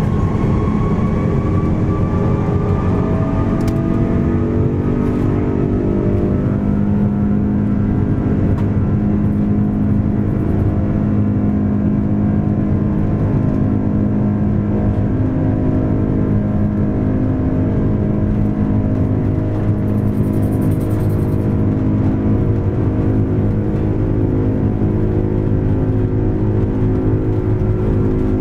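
Airbus A330's jet engines spooling up for the takeoff roll, heard from inside the cabin. A whine rises in pitch over the first few seconds, then settles into a loud, steady engine drone over a low rumble as the aircraft speeds down the runway.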